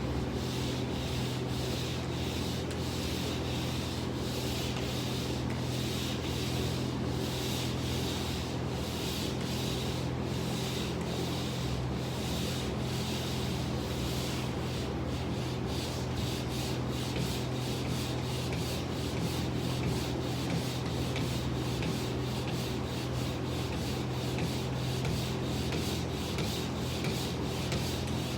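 Pole sander's sandpaper rubbing across a surface in quick, regular back-and-forth strokes, over a steady low hum.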